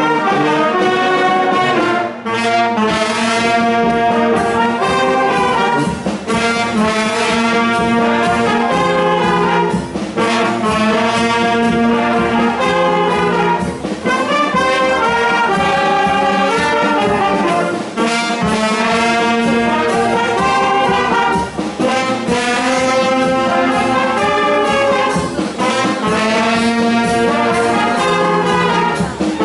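Trumpets and trombones of a wind band playing live, a brass piece in phrases with a short breath about every four seconds.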